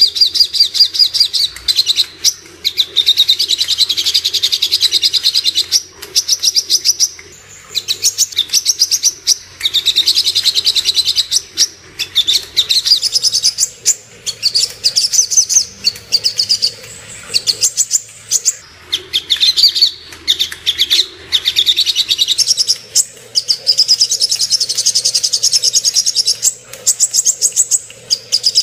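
Sogok ontong (songon), a spiderhunter, singing: long, rapid, high-pitched trills of quickly repeated notes, in phrases lasting a few seconds, separated by short pauses.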